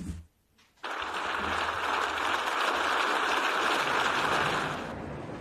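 Large crowd applauding: the clapping starts suddenly about a second in after a brief silence, holds steady, and eases a little near the end.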